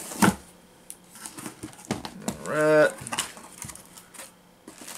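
Cardboard shipping box being handled and opened: scattered clicks, scrapes and rustles of cardboard and packing. A drawn-out spoken 'alright' about halfway through is the loudest sound.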